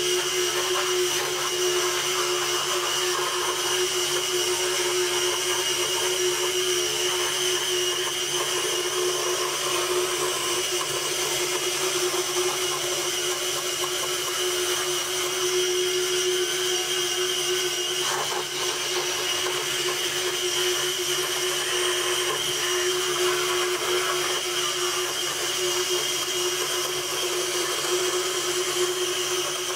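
Scroll saw running steadily while its blade cuts through plywood, a constant motor hum with a higher whine above it.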